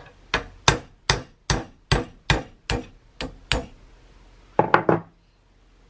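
A small mallet tapping a steel pin punch about nine times at an even, unhurried pace, driving a trigger-housing pin out of a Browning X-Bolt rifle's action. A quick pair of sharp metallic clicks follows near the end.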